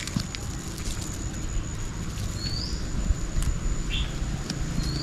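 Outdoor background with a low steady rumble, a thin high steady insect whine, and a couple of short rising bird chirps, about halfway through and near the end.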